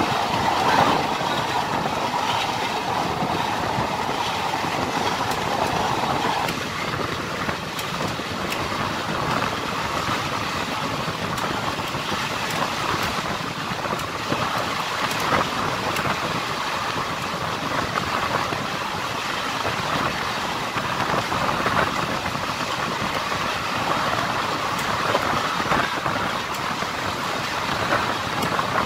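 Indian Railways passenger coach running at speed, heard from its open doorway: a steady rush of wind and rumble of wheels on rail, with light clicks.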